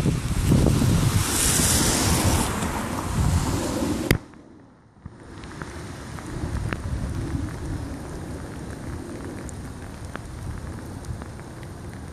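Rain falling, with wind gusting on the microphone for the first four seconds. A sharp click comes about four seconds in, and after a brief drop the sound settles into a steadier patter of rain with scattered drip ticks.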